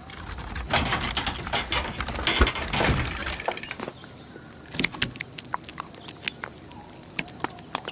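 Slime being squeezed and stretched by hand, giving dense sticky pops and crackles for the first few seconds, then sparser single clicks.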